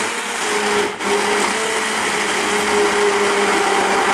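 Immersion (stick) blender running in a saucepan of thick cheese-and-cream sauce: a steady motor whine with the churning of the sauce, dipping for a moment about a second in.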